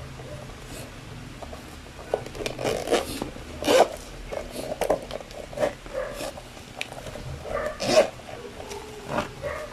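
Zipper of a hard-shell EVA bicycle top-tube bag being run open, in a series of short scraping zip strokes with clicks as the shell is handled. The strongest strokes come about 4 and 8 seconds in.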